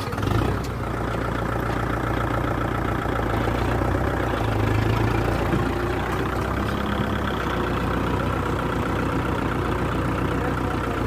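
Kubota MU4501 tractor's four-cylinder diesel engine running steadily at idle.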